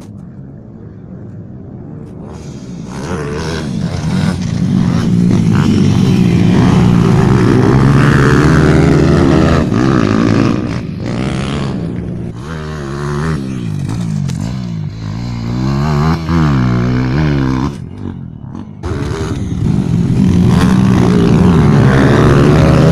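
Pit bike engines racing on a dirt track, revving up and down as the riders work the throttle through the corners. The sound builds up about three seconds in, eases briefly about three-quarters of the way through, then comes back loud as two bikes pass close by.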